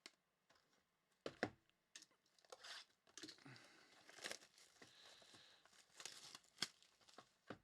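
Faint crinkling and tearing of trading card pack wrappers and cards being handled, in short scattered rustles and clicks.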